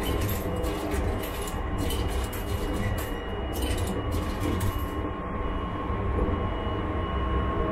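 Running noise of the Sunrise Izumo 285 series sleeper train heard inside the carriage, a steady low rumble. Over the first few seconds coins clink and rattle as they drop into a shower-card vending machine.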